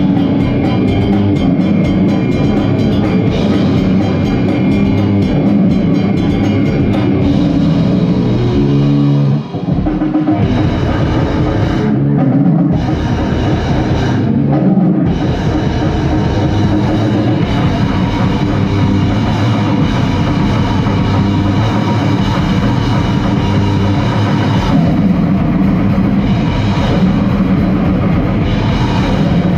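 Goregrind band playing live: heavily distorted guitar and bass over a drum kit with fast drumming. The music drops out for a moment about nine and a half seconds in, then comes straight back.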